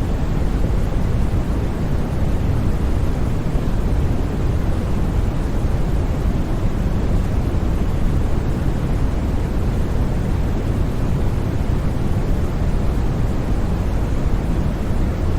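Steady, deep white noise for sleep, heavy in the low end and even throughout, with no changes or separate sounds.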